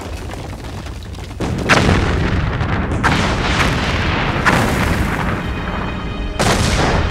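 Volcanic eruption blasting from a crater: a rumble, then four sudden deep booms about a second and a half apart, each trailing off into a long rushing noise of ash and rock.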